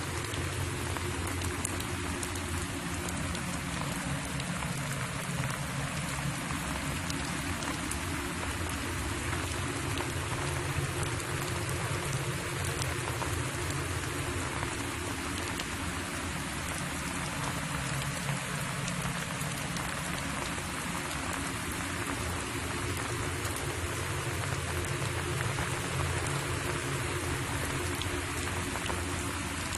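Steady crackling hiss with fine clicks, over a low steady hum.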